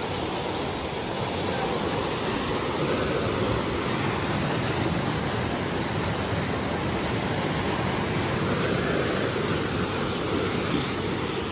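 A rocky mountain stream rushing steadily through rapids.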